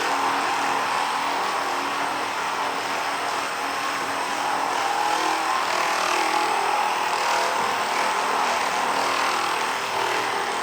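Theragun percussive massage gun running steadily, a continuous motor buzz.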